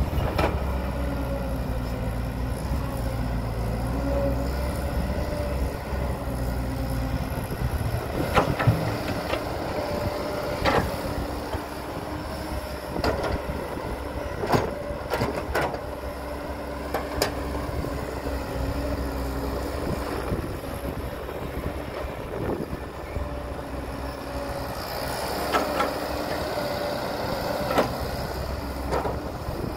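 Diesel engine of heavy earthmoving machinery running steadily, with scattered sharp knocks from about eight seconds in.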